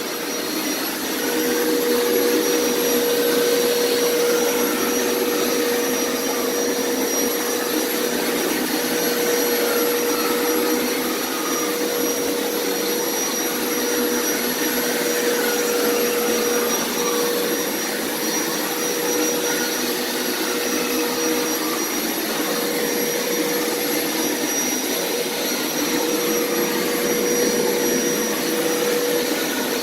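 Hoover Power Scrub Elite upright carpet cleaner running steadily on carpet: an even motor drone with a constant mid-pitched hum and a thin high whine over a suction rush.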